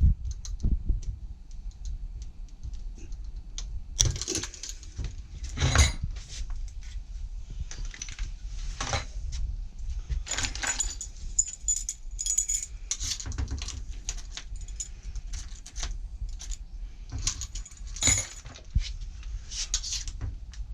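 Small metal parts clinking and rattling, with scattered sharp knocks, as lock hardware and tools are handled; the loudest clinks come about four and six seconds in and again near the end.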